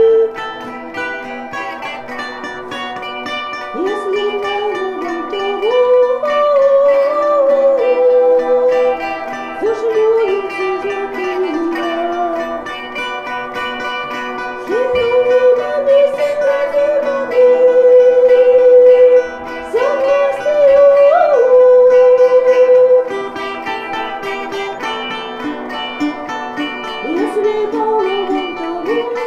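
A woman singing a slow folk-style song in phrases with sliding pitch, over plucked-string accompaniment and sustained droning tones.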